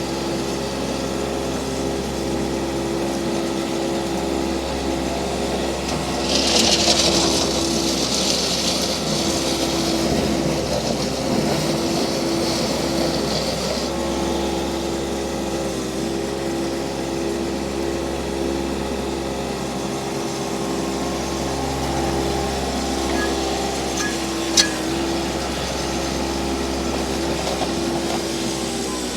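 Toro Dingo TX1000W mini skid steer loader's engine running at a steady speed under light load, briefly dipping in pitch now and then. About six seconds in comes several seconds of hiss, and a single sharp click comes near the end.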